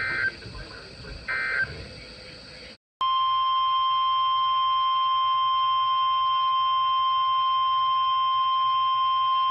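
NOAA Weather Radio emergency alert: the last two short buzzy bursts of the SAME digital header, then, after a brief dropout about 3 s in, the steady 1050 Hz warning alarm tone that comes before a warning message.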